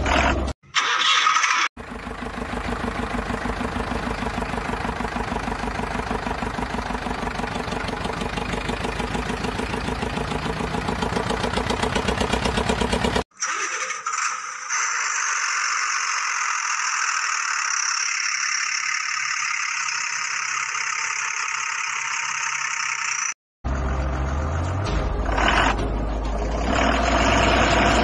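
Vehicle engine sound effects spliced one after another with abrupt cuts: a short burst, then an engine running with a fast, even pulse for about eleven seconds, then a steadier, higher-pitched drone for about ten seconds, then an engine starting up and running.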